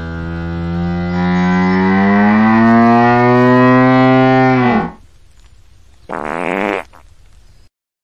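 Hippopotamus giving one long, deep, drawn-out call that rises a little in pitch and drops away as it ends, followed about a second later by a shorter, harsher call.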